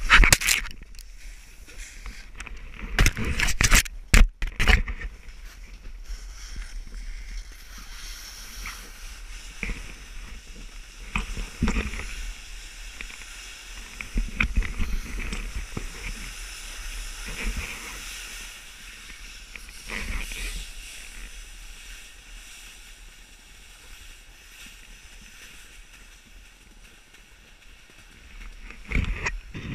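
A snowboard sliding and scraping over snow, a steady hiss that swells and fades with the turns, with sharp knocks and handling bumps on the handheld camera at the start, a few seconds in and near the end.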